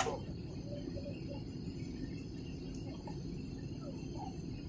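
Steady airliner cabin noise during descent: the low, even drone of the jet engines and the air rushing past the fuselage, heard from a window seat.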